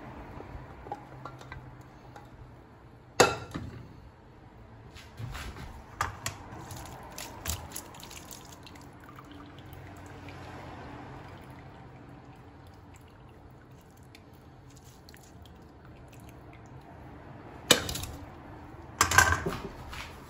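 Boiled chicken and its broth draining from a pressure-cooker pot into a stainless steel colander: liquid dripping and trickling, broken by a few sharp metal clanks, the loudest about three seconds in and twice near the end.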